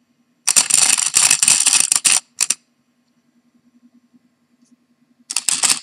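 A slow juicer's small induction motor, live on the mains, hums steadily. Twice it breaks into a loud rattling buzz, one lasting about a second and a half from half a second in and a shorter one near the end: the rotor touches the sides of the stator and chatters instead of spinning.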